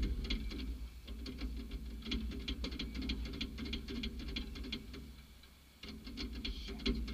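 A low steady engine hum with rapid, irregular clicking and ticking over it, several clicks a second. The sound dips briefly about five and a half seconds in, then picks up again.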